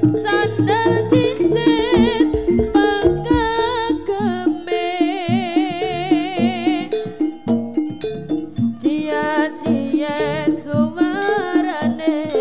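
Live jaranan ensemble music: steady drum and gong percussion under a wavering high melody line.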